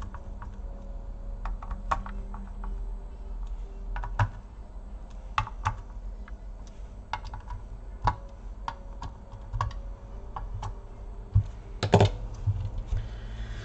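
Irregular small clicks and taps of a screwdriver and screws working on a graphics card's circuit board and cooler as it is screwed back together, with a louder knock about twelve seconds in.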